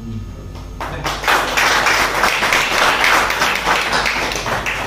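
Audience applauding: a burst of many hands clapping that starts about a second in and dies down near the end.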